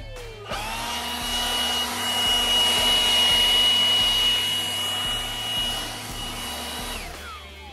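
Milwaukee M18 FUEL cordless leaf blower spinning up about half a second in to a steady high whine with rushing air as it blows leaves. Near the end the motor cuts off and spins down, its pitch falling away.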